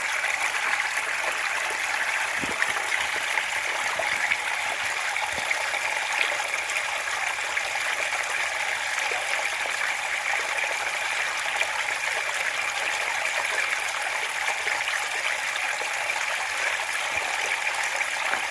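Steady rain falling: an even, unbroken hiss of water with a few faint ticks in it.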